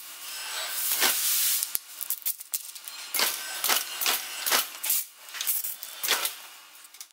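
Sign-making work at a roller laminating press, sped up four times: a quick run of short, noisy clatters as sign plates are handled and fed under the roller, about two a second in the middle stretch.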